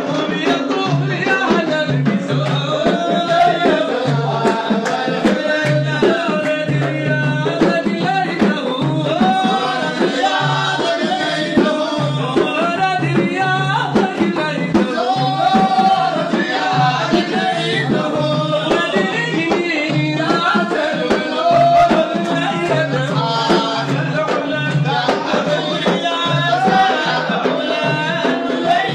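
Sudanese madih (Islamic praise song): men's voices singing a melody over a steady, driving beat of large hand-held frame drums (tar).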